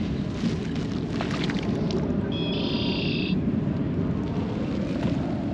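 Steady wind rumbling on the microphone, with a single high-pitched call or squeal lasting about a second, a little over two seconds in.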